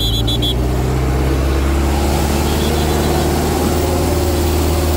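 Tractor diesel engine running steadily at an even, low pitch.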